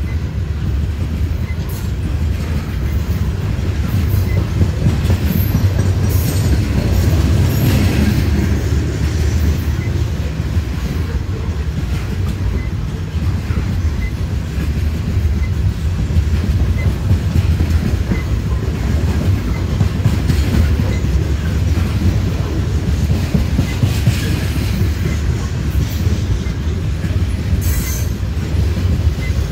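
Loaded coal train's gondola cars rolling past on the rails: a steady, loud low rumble of wheels on track, with occasional sharper clacks.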